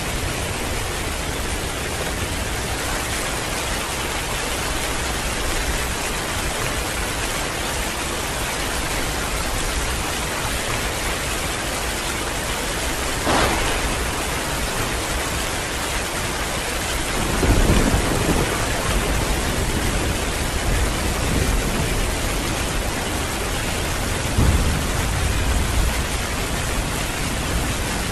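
Heavy rain falling steadily. About halfway through comes a sharp crack of thunder, followed by low rumbles of thunder a few seconds later and again near the end.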